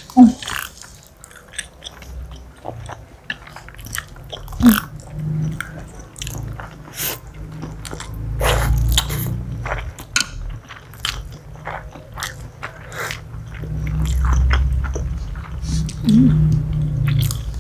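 Two people slurping and chewing spicy noodles close to the microphone, with many short wet smacks and clicks as they eat with chopsticks.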